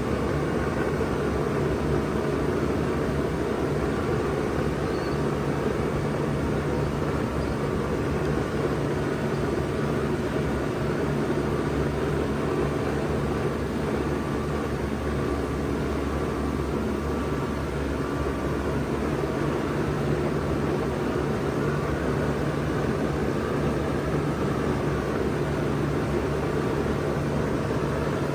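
1992 Bard 2.5-ton wall-hung heat pump running steadily in cooling mode: a steady low hum under an even rush of air from the unit.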